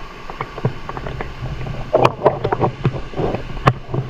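Steady rush of a waterfall, with a string of sharp splashes and knocks, the loudest about two seconds in and again near the end.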